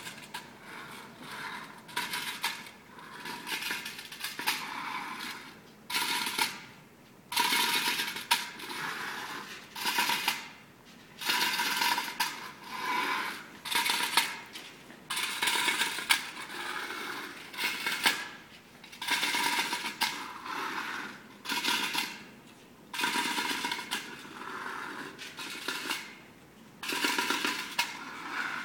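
Metal pails played as percussion on a stage floor: a rhythmic run of sharp metallic strikes and scrapes, roughly one a second, each ringing briefly before the next.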